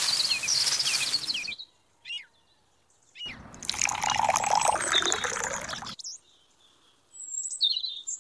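Dry cement powder poured from a small carton into a miniature mixer's can drum, a dry hiss that stops about a second and a half in. About three seconds in, water is poured from a small cup onto the powder, splashing for two to three seconds. Birds chirp in the gaps.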